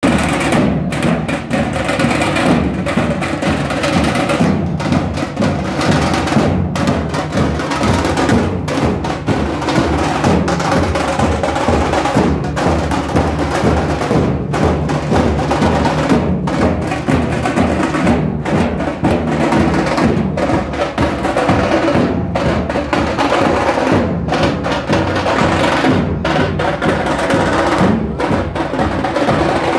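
Dhol-tasha ensemble playing loudly: big two-headed barrel drums (dhol) and small stick-beaten kettle drums (tasha) pounding out a fast, dense, unbroken rhythm.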